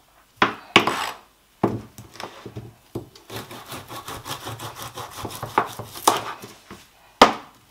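Kitchen knife sawing back and forth through a partly frozen fish, which is still hard and resists the blade, with a run of fast scraping strokes in the middle. Several sharp knocks of the knife on the plastic cutting board come near the start and again near the end.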